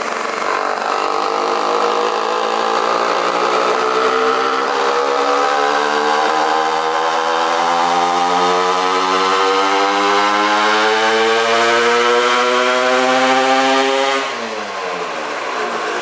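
Vespa PX 200 with a BFA 306 cc two-stroke single-cylinder engine and a VESPMOTO box exhaust, on a rear-wheel dyno power run: the engine note climbs steadily in pitch for about fourteen seconds under load, then the throttle is shut and the revs fall away sharply.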